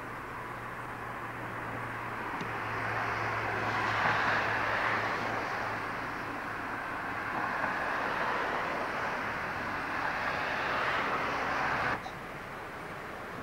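Steady vehicle noise: a broad rushing roar that swells a couple of seconds in, holds, and cuts off abruptly near the end, over a low steady hum.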